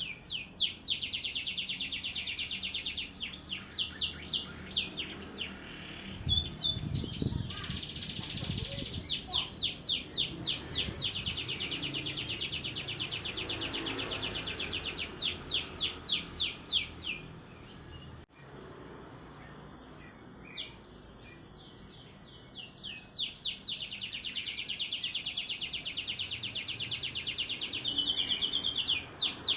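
Domestic canary singing a fast, tightly packed song of rapid trills and quickly repeated sweeping notes. A few seconds past the middle the song thins out for a quieter stretch, then the trills resume.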